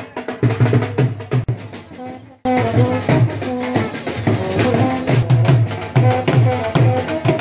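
Music with a steady, regular drum beat; about two seconds in it cuts abruptly to a different passage with a melody of held notes over the drums.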